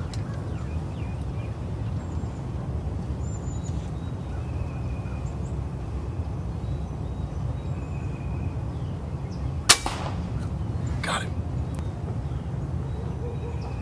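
An AirForce air rifle fires a single shot about ten seconds in, a sharp crack that misses its squirrel target. About a second and a half later comes a second, shorter sharp click, over a steady low background rumble.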